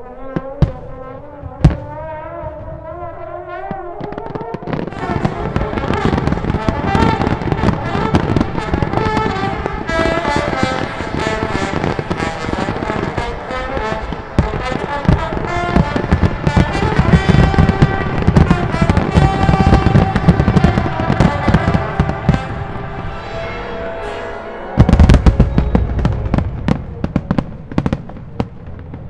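Fireworks display set to music: bursting shells and crackling effects bang thickly over the music, building from about four seconds in. A cluster of heavy booms about 25 seconds in is the loudest moment.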